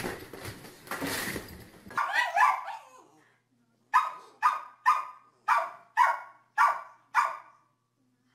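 Small terrier barking seven times in quick succession, about two barks a second. The barks follow a couple of seconds of scuffling noise and a short, louder rough sound.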